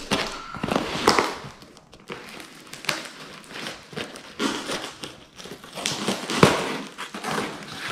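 Knife scraping and slicing at packing tape on a cardboard box, with cardboard and tape crinkling, in a run of irregular scratchy strokes. The tape is hard to cut through.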